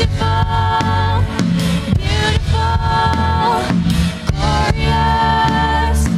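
A live worship band plays a song: women's voices sing long held notes over a drum kit, electric guitar and a steady low bass line.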